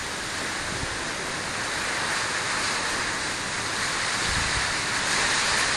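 Strong storm wind rushing through trees, a steady roar that grows louder, with gusts thumping on the microphone in the second half.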